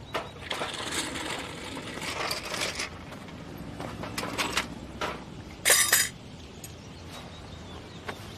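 Metal hand tools clinking and scraping during a car tyre repair, a series of knocks and clicks with one brief, loud harsh burst a little before six seconds in.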